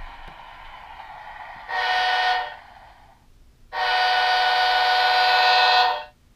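Model BNSF diesel locomotive's horn sounding twice from its speaker: a short blast about two seconds in, then a longer blast of about two seconds. A steady running noise from the locomotive is heard before the first blast.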